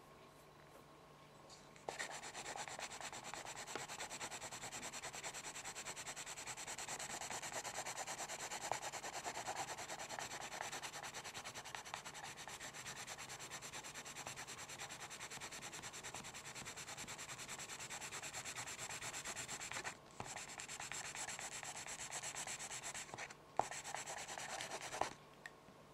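Steady scratchy rubbing that starts about two seconds in, breaks off briefly twice near the end, then stops.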